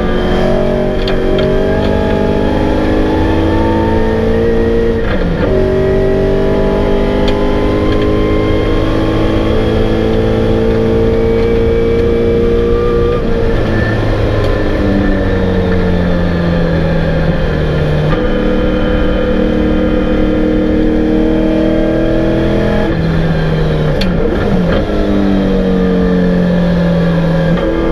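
Holden 5.0-litre V8 of a 1991 VN Commodore Group A touring car heard from inside the cabin at racing speed. The engine note climbs steadily through each gear and drops with several gear changes, falling sharply about halfway through and again near the end as the car slows for corners.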